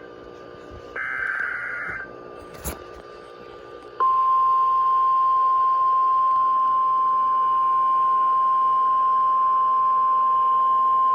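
NOAA Weather Radio emergency alert start: a one-second burst of screeching SAME header data, a click, then about four seconds in the steady single-pitch 1050 Hz warning alarm tone, which signals that a new warning follows.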